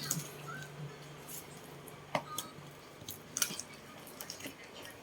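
Scattered faint clicks and rustles of packaging and plastic parts being handled while a small washing machine is unboxed, with a faint low hum in the first half.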